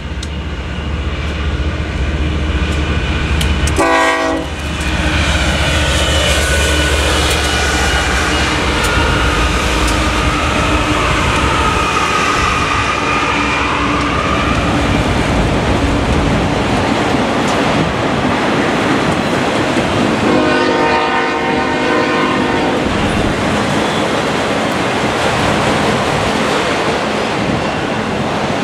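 BNSF freight train passing close by. Its diesel locomotives sound a short horn blast about four seconds in, then go by with a deep engine rumble that fades out over the first half. A long string of autorack cars follows, rolling past with steady wheel-on-rail noise, and a brief horn-like chord sounds again about twenty seconds in.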